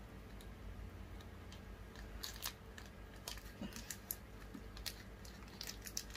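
Faint crinkling and rustling of a shiny sweet wrapper being peeled open by hand, in scattered small clicks and crackles.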